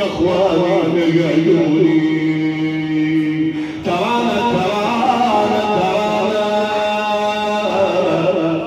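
An elderly man chants a mournful lament (na'i) through a microphone. He holds long, wavering, ornamented notes, breaks off briefly a little before four seconds in, then goes on.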